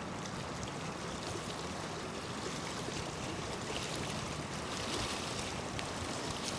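Wind across a choppy lake: a steady rushing hiss of wind and water, with an uneven low rumble of wind buffeting the microphone.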